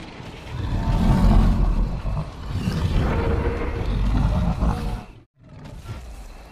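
Sound-effect roars for an animated sauropod dinosaur: two long, deep roars that cut off suddenly about five seconds in.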